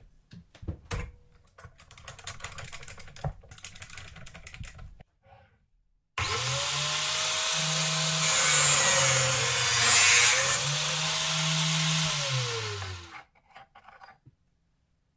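Clicks and scraping as an iron flat bar is set in the cutting jig, then about six seconds in an angle grinder mounted in a chop-saw stand switches on. Its motor pitch sags and the hiss of the disc grinding through the iron bar peaks in the middle, then the pitch recovers and the grinder spins down near the end.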